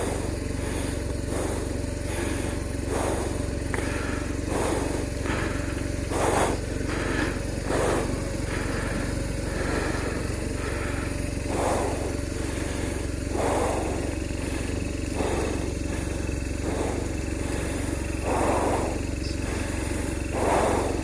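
BMW R1200RT's boxer-twin engine idling steadily, with short swishes every second or two from a cloth wiping rain off the wet bodywork.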